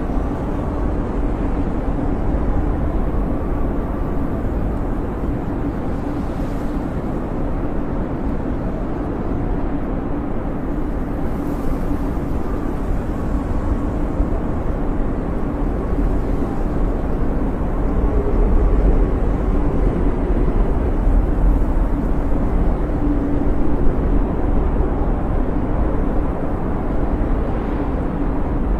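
Blizzard wind howling without a break: a deep roar with faint wavering whistles above it, swelling a little in the second half.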